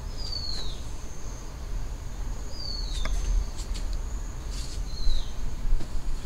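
A bird repeating a short call that slides downward in pitch, three times about two and a half seconds apart, over a thin steady high whine and a low rumble. A few faint clicks come midway.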